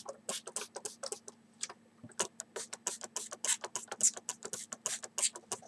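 Hand trigger spray bottle being squeezed again and again, each squeeze a short hiss of water mist, several a second with a brief pause about a second and a half in, misting seedling soil gently so the weakly rooted sprouts are not washed out.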